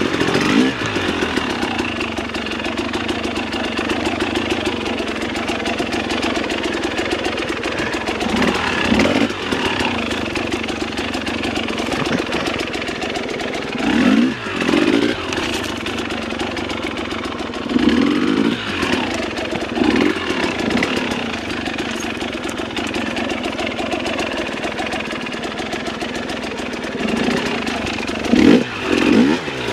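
Dirt bike engine running at low revs through slow technical riding, with a handful of short throttle blips that rise and fall, the strongest near the end.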